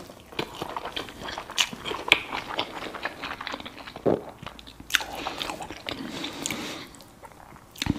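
A person chewing whole-wheat bread with honey close to the microphone: a run of small, irregular mouth clicks and smacks.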